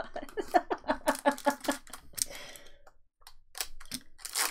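Foil Pokémon booster pack wrapper crinkling and clicking as it is handled and torn open, loudest in a burst of tearing near the end. Over the first half an excited voice gives a quick run of short sounds.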